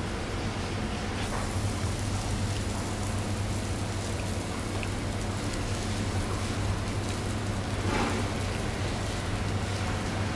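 Steady kitchen background noise: an even hiss over a constant low hum, with a couple of faint soft taps.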